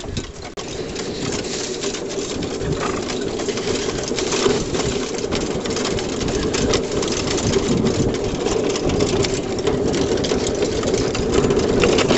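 Pony-drawn saddle-chariot cart rattling steadily as it is pulled over bumpy grass, a busy clatter of many small knocks that grows louder toward the end.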